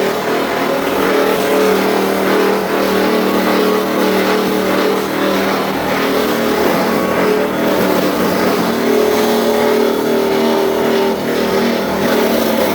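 Electric wood-log grater (sawdust crusher) driven by a 15 HP three-phase motor, running steadily and shredding wood into sawdust: a constant hum under a rough, dense grinding noise.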